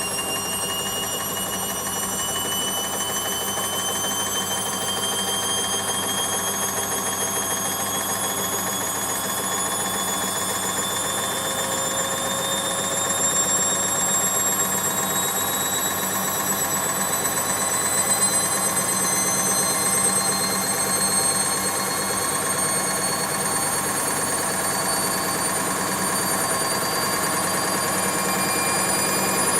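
Washing machine in its spin cycle, the drum speeding up: a high motor whine rises slowly and steadily in pitch over a steady low hum, growing a little louder.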